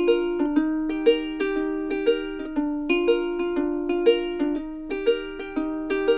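Background music: a light, bouncy tune on a plucked string instrument, short notes picked in a quick, even rhythm.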